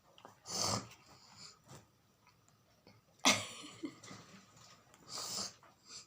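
A woman sniffing and breathing forcefully through her nose while tickling it to bring on a sneeze. There are three short noisy bursts: one just under a second in, the loudest and most sudden a little after three seconds, and another around five seconds.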